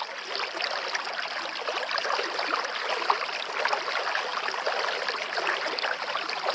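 Running water babbling and trickling like a small stream, a steady bubbly wash of sound.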